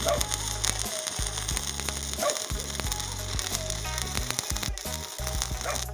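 Stick-welding arc from a Wert Mini 200 inverter welder burning on a coated electrode without pause, the machine run without its homemade choke on an ordinary lead.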